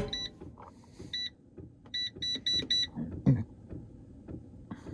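An air fryer's touch control panel beeping as its buttons are pressed to set it: single short high beeps near the start and about a second in, then four in quick succession around two seconds in. A dull thump follows just after three seconds.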